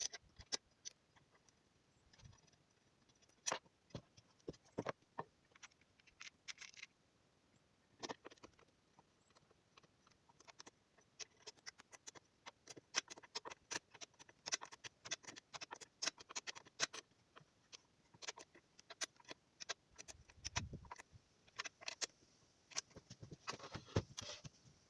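Irregular clicks, taps and light rattles of parts being handled and fitted during assembly, coming thickest in the middle stretch, with a low thud about three-quarters of the way through.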